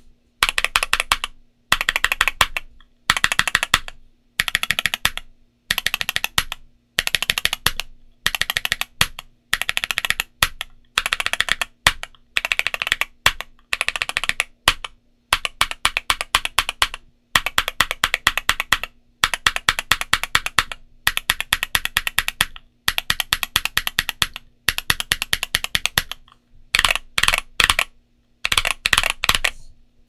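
Typing on an Ajazz AC067 mechanical keyboard with MMD Princess Tactile 60 g switches and OEM-profile dye-sub PBT keycaps: short runs of rapid keystrokes with brief pauses between them.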